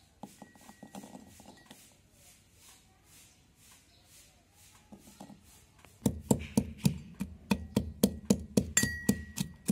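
A metal pestle pounding garlic cloves and ginger in a stainless steel mortar, about three strikes a second with a metallic ring, starting about six seconds in. Before that, a few light clicks as the garlic cloves are dropped into the mortar.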